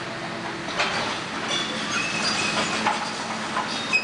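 Demolition machinery at work: a hydraulic excavator's diesel engine running, with a series of sharp metal clanks and a few short high metallic squeals from steel and debris being handled.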